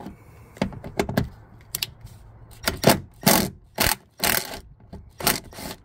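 Cordless impact driver with a 10 mm socket running in about ten short trigger bursts as it loosens the bolt that holds a door jamb switch.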